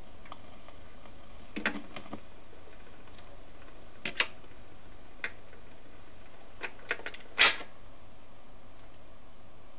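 Fidelity HF45 record player's autochange mechanism cycling at the end of a record: the tonearm lifts out of the run-out groove and swings back to its rest. Scattered mechanical clicks and knocks, the loudest a short knock about seven and a half seconds in, over a steady low hiss.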